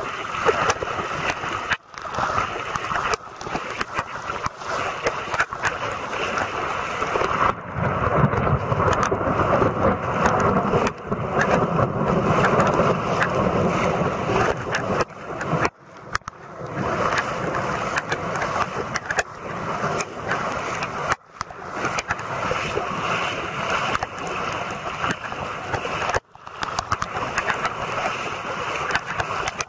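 Steady loud rushing noise of heavy rain and floodwater running along a footpath, dropping out for a moment about five times.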